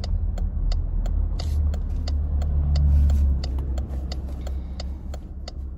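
Car cabin noise while driving: a steady low rumble of road and engine that swells briefly around the middle, with a quick, even ticking about five times a second.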